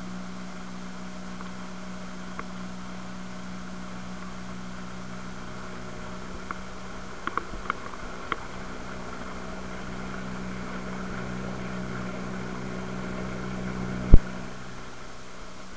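Small motorboat's engine running steadily with a low hum, water splashing against the hull beside it. A few light clicks around the middle and one sharp knock near the end.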